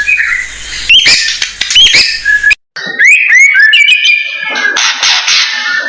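White-rumped shama (murai batu) singing loudly: a varied run of clear whistled notes that sweep upward, broken by a brief dropout, then quick mixed phrases and a harsh scratchy chatter near the end.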